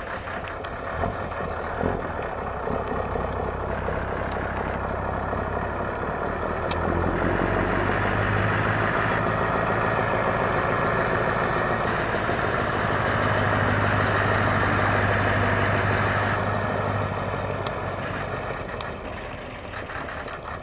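Heavy truck engine running through an open, straight exhaust pipe with a steady low drone. The sound grows louder about a third of the way in, holds for several seconds, then eases off near the end.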